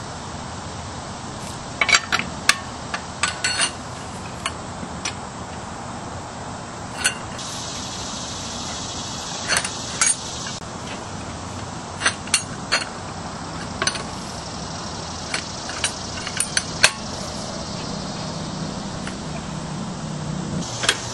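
Sharp metallic clinks, irregular and scattered, as a steel lug nut wrench with a pipe slipped over it for leverage is fitted onto and turned against a car wheel's lug nuts to loosen them.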